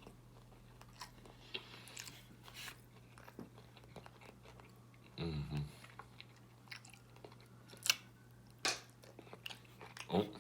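A person chewing and biting food close to the microphone, with scattered wet smacks and a few sharper crunchy bites later on, over a steady low electrical hum.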